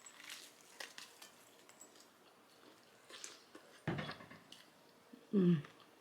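Biting into and chewing a lettuce-wrap chicken fajita: a few short, crisp crunches of lettuce, a thump about four seconds in, and a short hummed 'mm' near the end.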